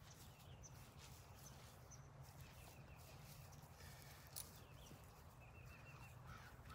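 Near silence: faint outdoor background with a low rumble, a few faint high chirps and a small click about four seconds in.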